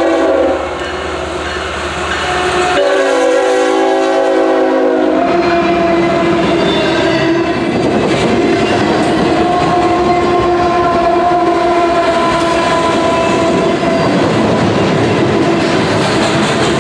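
A CSX double-stack intermodal train led by a single GE Evolution-series (GEVO) locomotive. Its horn sounds briefly at the start, then in a louder chord of several notes about three seconds in. As the stack cars roll past there is continuous rail noise with wheel clickety-clack, and steady tones hang over it until a few seconds before the end.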